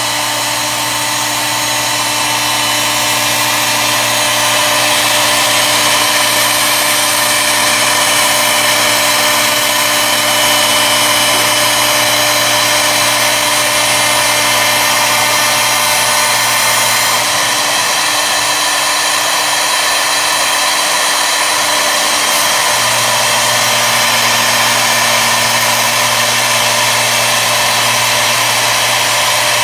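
CNC woodworking machine running its router spindle and cutting into a turned wooden spindle: a loud, steady machine whine over a constant low hum. The hum drops away for about five seconds past the middle and then comes back.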